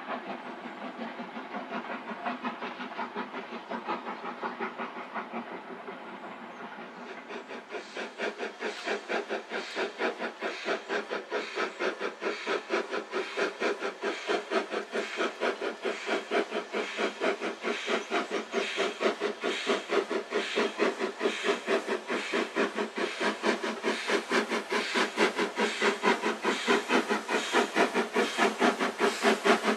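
Steam locomotive working hard, its exhaust beating in an even rhythm of about three to four chuffs a second. It is faint and distant at first, then from about seven seconds in the chuffs are sharper and grow steadily louder as the engine approaches.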